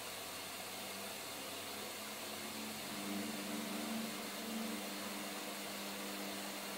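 Samsung washing machine running: a steady whooshing hiss with a low motor hum that comes in a couple of seconds in and wavers in strength.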